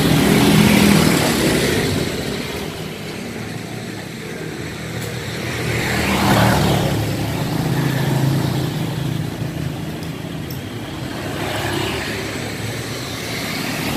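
Motor vehicles running on a road, a steady engine hum with traffic noise that swells as a vehicle passes about six seconds in, and again more gently near the end.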